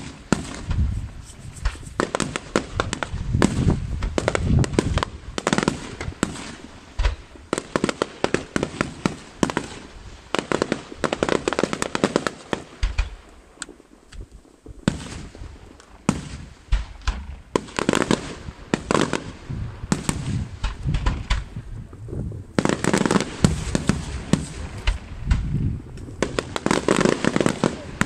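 Aerial firework shells bursting in rapid succession, a dense run of sharp bangs. The barrage thins briefly around the middle, then comes thick again in the last several seconds.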